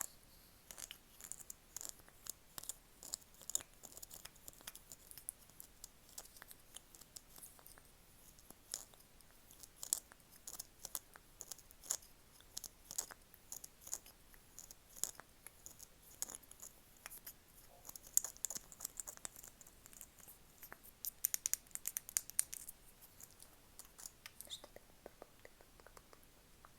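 Close-miked ASMR tapping: many crisp, irregular light taps and clicks, with a denser rapid run of taps near the end.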